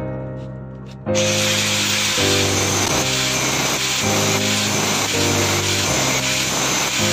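Angle grinder's cutting disc running and cutting into a steel workpiece, a steady hiss that starts abruptly about a second in. Piano background music plays underneath.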